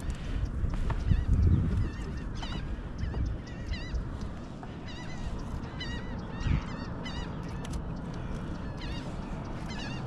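A flock of gulls calling over the water, giving runs of short arched squawks again and again, with a low thud about a second in.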